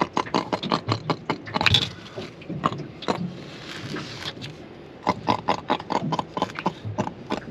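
Freshly caught grunter (javelin fish) flapping and knocking against the boat as it is handled and measured: a rapid, irregular run of sharp knocks and clicks.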